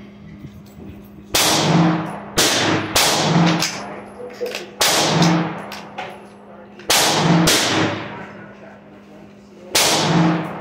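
Seven gunshots at an uneven pace, some in quick pairs, each followed by a long echoing tail under the range's roof. A faint steady hum runs underneath.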